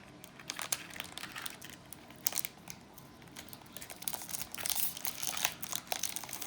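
A foil Pokémon booster pack wrapper being crinkled and torn open by hand, with dense crackling that grows busier and louder partway through as the wrapper gives.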